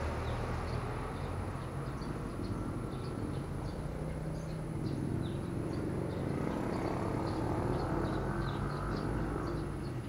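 Outdoor background sound: a steady low rumble with many short, high bird chirps scattered through it.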